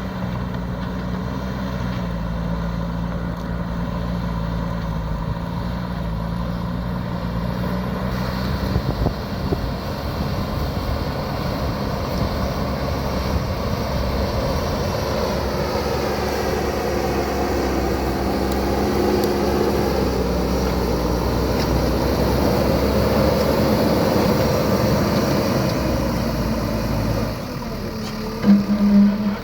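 JCB backhoe loader's diesel engine running under load while levelling ground: steady at first, then working harder with its pitch rising and falling in the middle. A brief loud tone near the end.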